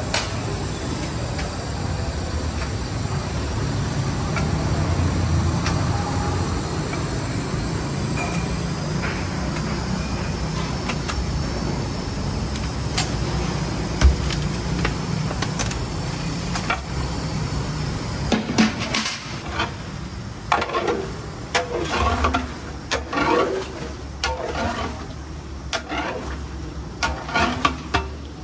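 Large steel cauldron of hot oil on a burner, with a steady low rumble. About two-thirds of the way in, chunks of meat go into the oil, and irregular splashing and sizzling bursts start.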